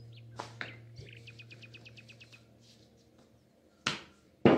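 Birds chirping, with a quick trill of about ten short high chirps a little after the first second. Near the end come two sharp knocks, the second the loudest, from the rolled dough and tools being handled on the pastry mat.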